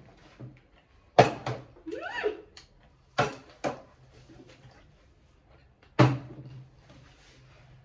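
Plastic water bottle flipped and landing on a table with sharp thuds: one about a second in, two close together around three seconds in, and one near six seconds. A brief voice sound gliding up and down comes around two seconds in.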